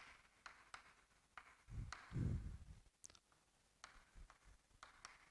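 Chalk tapping and scratching on a chalkboard as words are written: faint, scattered clicks. About two seconds in there is a brief low murmur of voice.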